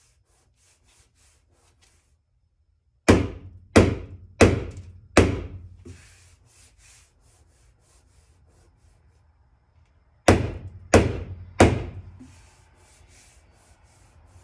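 Body hammer striking a car body panel to knock in high spots: four blows about two-thirds of a second apart, then a pause, then three more at the same pace, each with a short metallic ring.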